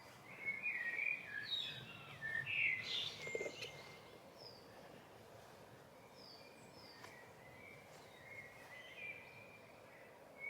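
Songbirds singing outdoors: a loud, varied warbling phrase in the first few seconds, then quieter scattered chirps and short high notes over faint steady background noise.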